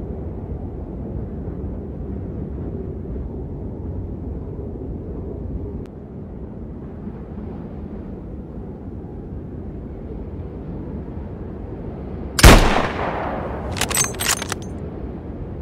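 Wind rushing on the microphone, then a single rifle shot about three quarters of the way in, trailing off in an echo. About a second and a half later comes a quick run of sharp clicks.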